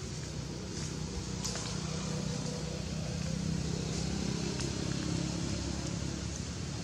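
Steady low hum of a distant engine over background noise, growing a little louder in the middle of the stretch and easing off near the end, with a few faint ticks.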